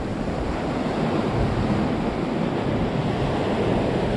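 Ocean surf washing steadily against a coastal rock shelf, with wind rushing on the microphone.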